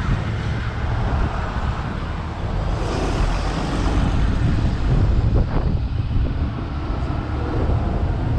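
Road traffic passing on the highway alongside: steady noise of cars and trucks going by, with one vehicle swelling louder about three seconds in.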